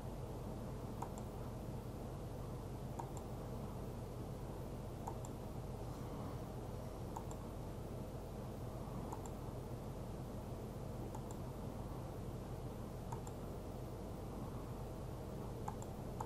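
Computer mouse clicking, one short click about every two seconds, over a steady low hum and hiss.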